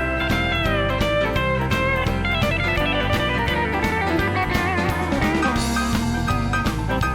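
Background music: an instrumental guitar break with drums in a country-style song.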